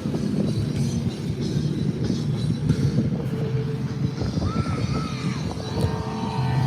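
Music carrying over from an outdoor concert, with city street noise underneath.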